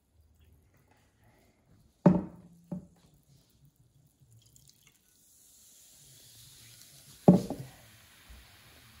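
Vinegar poured into a small glass flask of baking soda, then the mixture fizzing with a steady, rising hiss as the foam climbs out of the neck. Two sharp knocks about two seconds in and a louder thump near the end.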